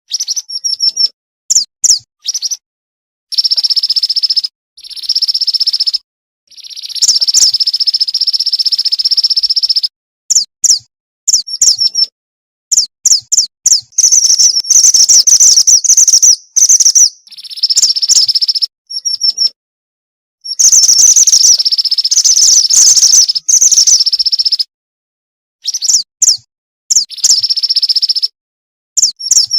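Female mountain mantenan bird calling for a male, played as a lure call: clusters of short, high chirps alternating with longer buzzy trills, each a second or more, broken by sudden silent gaps.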